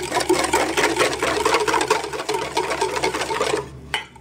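Wire whisk beating fast against a stainless steel bowl, rattling in a rapid, even rhythm as boiling milk is whisked into egg yolks, sugar and cornstarch for pastry cream. The whisking stops about three and a half seconds in, and a single light knock follows just before the end.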